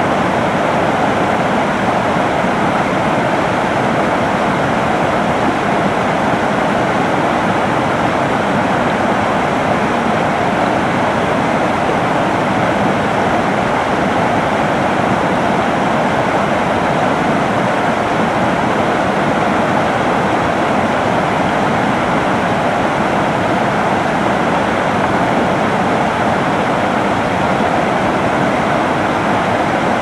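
Fast-flowing river water, a loud and steady rush with no breaks or changes.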